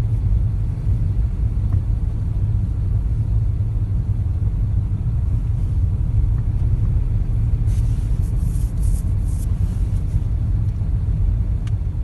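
Car cabin rumble: a steady low drone of engine, road and wind noise, heard from inside the car through a partly lowered side window. A few faint crackles come about eight seconds in.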